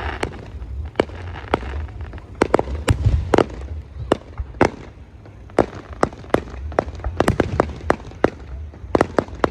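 Fireworks display: aerial shells bursting in a rapid, irregular string of sharp bangs, with a steady low rumble underneath.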